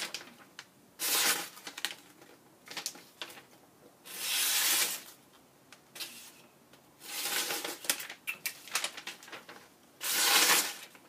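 A sharpened tomahawk blade push-cutting through paper. There are four rustling, tearing swishes about three seconds apart, with small paper rustles and clicks between them.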